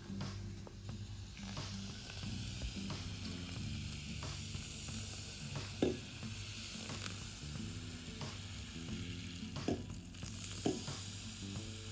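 Carbonated drink fizzing in a glass: a steady hiss, with a few short clicks about six, ten and eleven seconds in.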